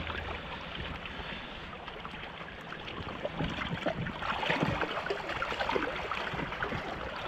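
River water splashing and lapping at the bank as a carp is slipped back into the water, with wind on the microphone.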